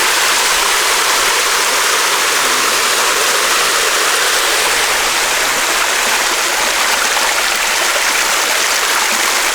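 Waterfall pouring into a natural rock pool: a loud, steady rush of water with no break.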